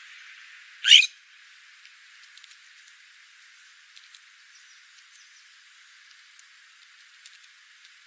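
Spotted towhee and scrub jay feeding on scattered seed: one short, loud, harsh sound about a second in, then faint scattered clicks of beaks picking at seed on gravel.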